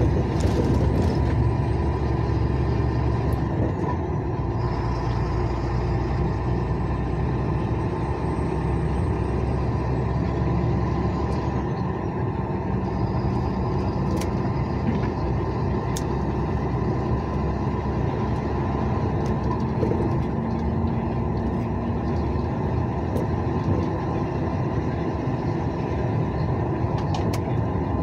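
Steady driving noise heard from inside a vehicle's cab on a wet highway: a continuous low engine drone mixed with tyre noise on wet asphalt.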